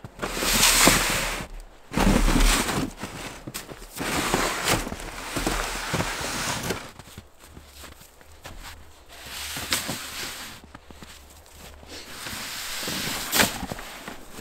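Boots crunching through snow and a loaded plastic pulk sled scraping and sliding over the snow as it is hauled by a rope, in irregular swishing bursts a second or two long.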